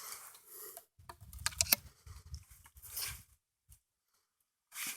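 A 12-gauge shotgun being loaded with slug shells: rustling handling noise with a few sharp metallic clicks.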